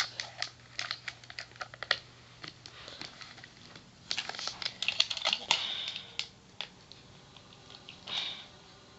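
Plastic Silver Surfer action figure and its surfboard being handled: scattered small clicks and taps of plastic, busiest around the middle and thinning out near the end.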